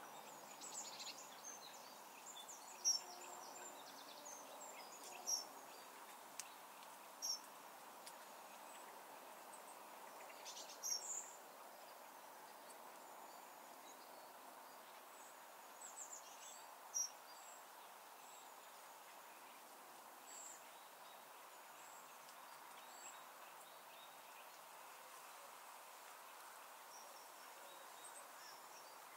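Faint open countryside ambience: a quiet steady background hiss with scattered short, high bird chirps. The chirps come in a cluster in the first few seconds and again around the middle, then thin out.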